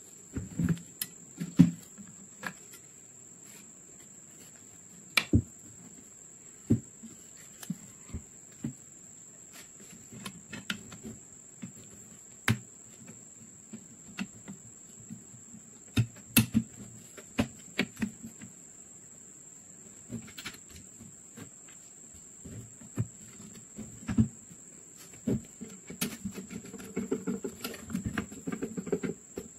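Sharp clicks and knocks of metal and wood every few seconds as a Mauser M48 rifle's action is handled and fitted into its wooden stock, with denser handling and a screwdriver working the trigger-guard screw near the end. A faint steady high-pitched whine runs underneath.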